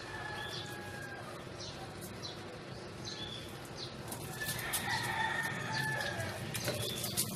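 A rooster crowing: a long held call about halfway through, over short bird chirps that repeat through the whole stretch.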